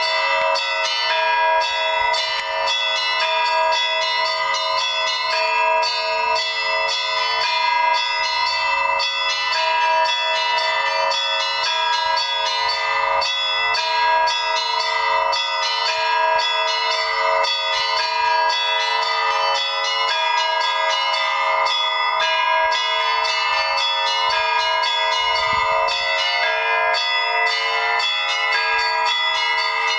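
Russian Orthodox church bells ringing in a continuous peal: many bells struck in quick succession, small bells chiming rapidly over steady deeper tones.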